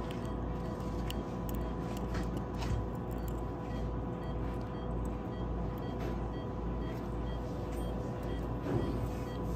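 Steady low machine hum and rumble with a faint steady tone running through it, and a few soft clicks.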